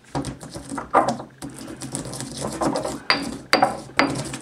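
Green peppercorns being crushed with a pestle in a heavy mortar: a run of grinding, crunching strokes, with three sharp knocks of pestle on mortar near the end that ring briefly.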